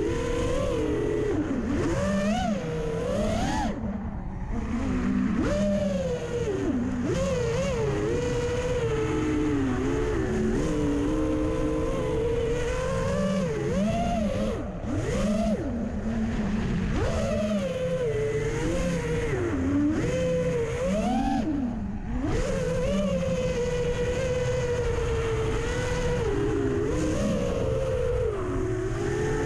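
FPV racing quadcopter's four T-Motor F80 brushless motors and propellers whining, the pitch rising and falling quickly and often with the throttle, over a low wind rumble on the onboard camera's microphone.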